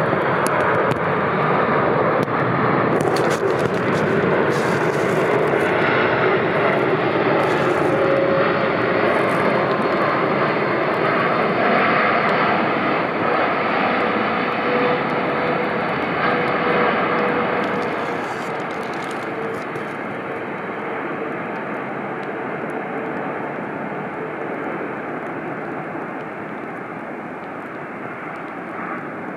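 Boeing 747-8F freighter's four jet engines on final approach and landing, a loud steady jet noise with a faint steady whine in the middle. It grows quieter about two-thirds of the way through as the aircraft passes and lands.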